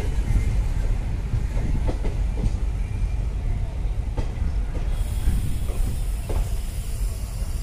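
Passenger train running, heard from on board: a steady low rumble of the wheels with occasional clicks over the rail joints. A high hiss joins about five seconds in.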